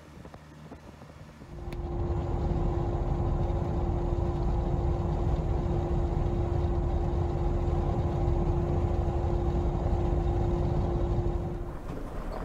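Car driving at speed: a steady low rumble of road and engine noise with a constant droning hum. It starts abruptly about two seconds in and eases off near the end.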